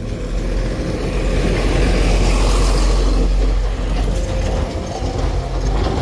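Dump truck's diesel engine running as it drives past close by, the rumble growing loudest about two to three seconds in and then easing off.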